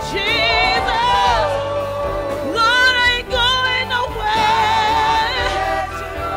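Live gospel praise song: singers holding long, wavering notes over a band's steady accompaniment.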